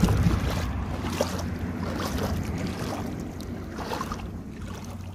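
Shallow lake water splashing and sloshing, with wind rumbling on the microphone. The sound is strongest at the start and slowly fades.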